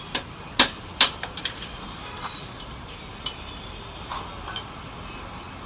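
Metal tools and parts clinking and knocking while the motorcycle's front fork and steering head are worked on by hand: a string of sharp clinks, the two loudest about half a second and a second in, then fewer, fainter ones.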